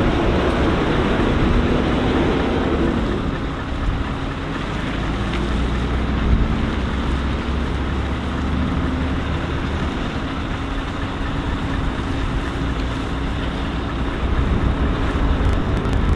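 Heavy machinery running steadily: a low rumble under a steady hum that dips slightly in pitch about three seconds in.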